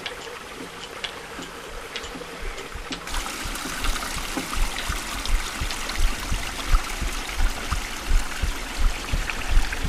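Small stream trickling and gurgling over stones, growing louder about three seconds in. From about four seconds, low dull thumps come about one and a half times a second under the water.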